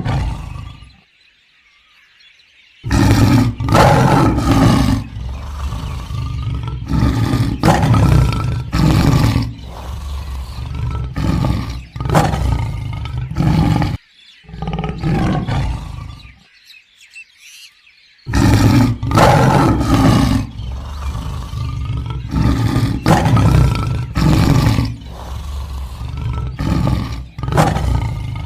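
A big cat roaring: a roar fades out right at the start, then two long bouts of loud, repeated roars and grunts come roughly one a second, the first starting about three seconds in and the second after a few seconds' pause past the middle.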